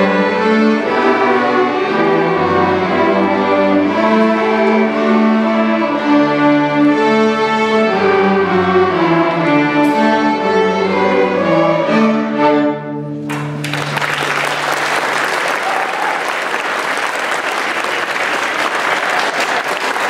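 School string orchestra of violins and cellos playing the final bars of a piece, ending on a held low note about thirteen seconds in. Audience applause follows at once and continues.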